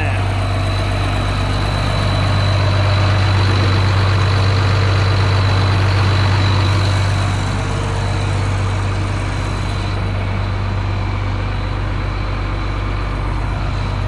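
Heavy tractor engine idling steadily with a deep, even hum, rising a little in level for about five seconds before settling back.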